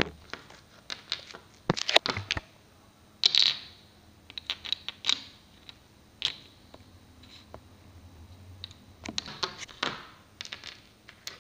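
Small plastic toy figures being handled and set down, tapping and clattering on a table and on plastic toy bath furniture. The taps are scattered and irregular, with a few louder clusters of knocks.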